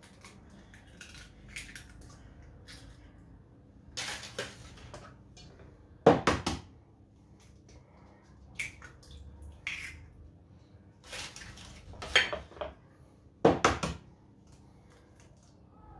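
Eggs being cracked into a stainless steel mixing bowl, one after another: a series of sharp taps and cracks of eggshell a second or more apart, with the hands handling shells in between.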